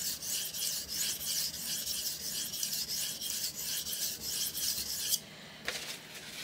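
Steel knife blade scrubbed back and forth on a 600 grit diamond sharpening plate: a fast run of rasping strokes, grinding one side of the edge to raise a burr. The strokes stop about five seconds in, followed by one short scrape.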